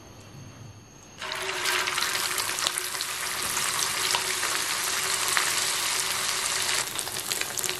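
Chicken chapli kabab frying in hot oil in a fry pan: a steady, dense sizzle full of crackling pops that starts abruptly about a second in.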